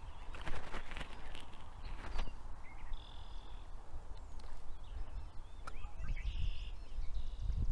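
Handling noise from unhooking a just-caught largemouth bass: rustling and small clicks, busiest in the first couple of seconds. Two short, high bird calls sound in the background, and a low rumble builds near the end.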